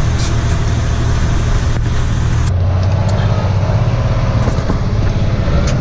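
Engine and road noise of a truck loaded with seed, heard from inside the cab while driving at steady speed.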